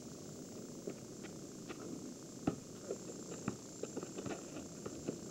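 Footsteps and scattered light knocks on pavement, about a dozen irregular taps, the sharpest about two and a half and three and a half seconds in, over a faint steady outdoor hiss.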